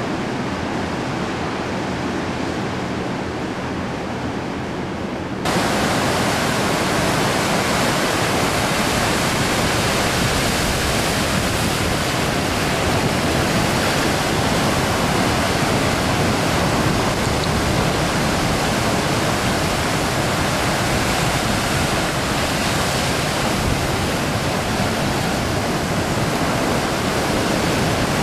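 Heavy ocean surf breaking, a steady rushing wash of noise that suddenly becomes louder and brighter about five seconds in.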